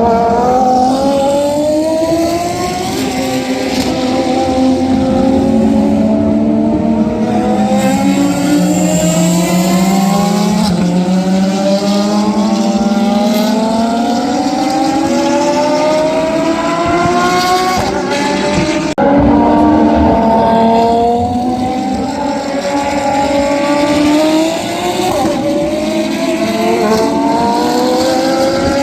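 Racing car engine accelerating hard, its pitch climbing and then dropping back again and again as it shifts up through the gears. It changes abruptly to another pass about two-thirds of the way through.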